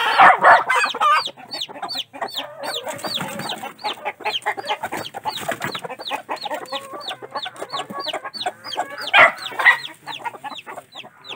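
A newly hatched chick peeping over and over in short falling-pitch peeps, about four a second: the chick is scared. Game hens cluck and squawk as they fight over the nest, loudest near the start and again about nine seconds in.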